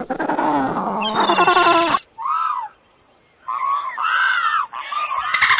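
Recorded sea-animal and seabird calls played as sound clips from a phone app: about two seconds of dense, harsh calling, then several short cries that rise and fall in pitch with gaps between them. Near the end a higher sound with rapid clicking begins.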